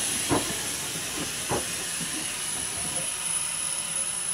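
Steam locomotive of a 15-inch-gauge railway hissing steam steadily, with a few light knocks about a second apart.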